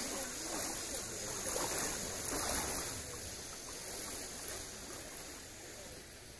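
Steady rush of a shallow, fast-flowing stream running over its bed, growing somewhat quieter near the end.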